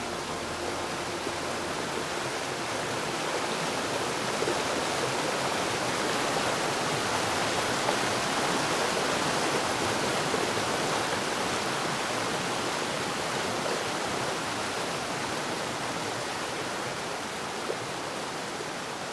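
Rushing water of a mountain waterfall: a steady hiss that grows louder toward the middle and eases off again near the end.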